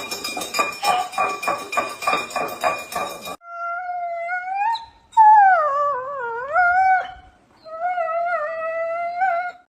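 A cat yowling: three long, drawn-out, wavering calls. The first rises in pitch, the second swoops down and back up, and the third holds fairly level. Before them comes about three seconds of quick rhythmic clattering over a steady tone.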